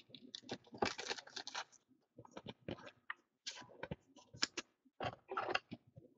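Trading cards being handled: scattered light clicks and short rustles of card stock and plastic, in three brief flurries with pauses between.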